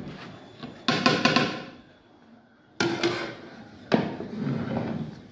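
Long metal ladle knocking against the side of a large aluminium cooking pot while rice is stirred, three ringing clanks: about a second in, near three seconds, and at four seconds.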